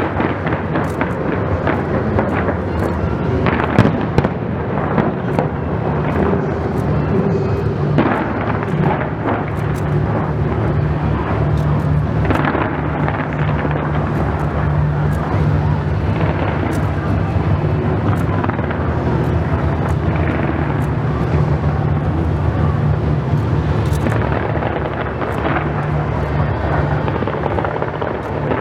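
A dense, continuous barrage of aerial fireworks: rapid overlapping bangs and crackling that keep up without a break, over a steady low rumble.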